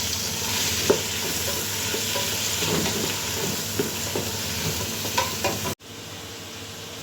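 Onion and ginger sautéing in hot oil: a steady sizzle, with scattered clicks and scrapes of a utensil stirring in the pan. Shortly before the end the sizzle cuts out and comes back quieter.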